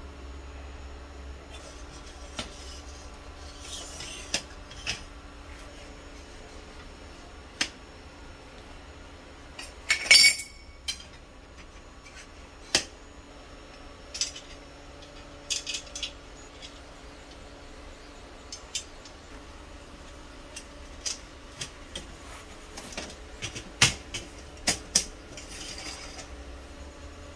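Aluminium extrusion frame pieces clinking and knocking as they are handled and set against a stone floor: scattered sharp taps, a louder clatter about ten seconds in, and a quick run of knocks near the end.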